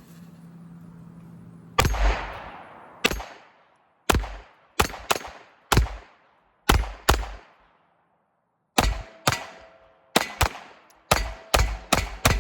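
Taurus TX22 .22 LR semi-automatic pistol firing Aguila high-velocity 40-grain rounds: about sixteen sharp shots at an uneven pace, some in quick pairs, starting about two seconds in, each with a short ringing tail.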